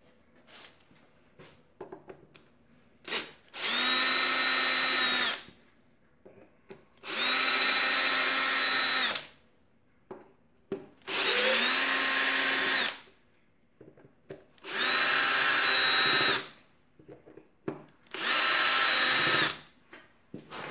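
Power drill-driver spinning bolts out of the aluminium crankcase of a homemade five-cylinder radial engine. It runs five times for a second or two each, its motor whine rising at each start and dropping at each stop. Light clicks of bolts and parts being handled fall between the runs.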